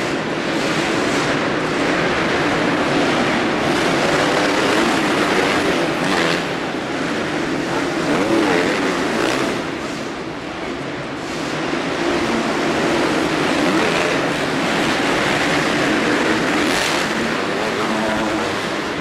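Several motocross bikes racing round an indoor dirt track, their engines revving and falling back as they take jumps and turns, the sound filling the hall. The pack is slightly quieter for a moment about ten seconds in.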